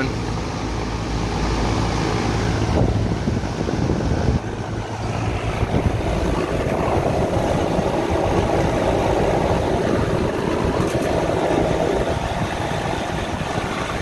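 Steady mechanical running noise of HVAC equipment, with a low hum that drops away about four seconds in.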